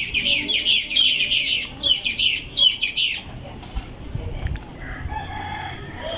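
Birds calling in a dense, rapid chorus of high, shrill chirps for about three seconds, then dropping to fainter, sparser calls.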